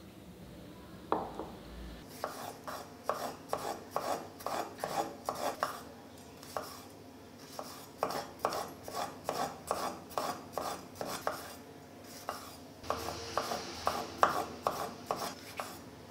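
Kitchen knife chopping a tomato on a wooden cutting board: runs of sharp chops, about three a second, with short pauses between runs.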